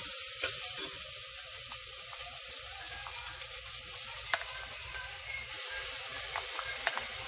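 Ginger-garlic paste frying in hot oil with browned onions in a pressure cooker: a steady sizzling hiss with a few small sharp clicks.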